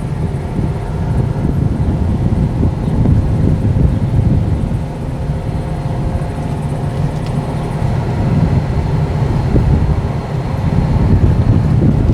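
Pickup truck engine running steadily at low speed.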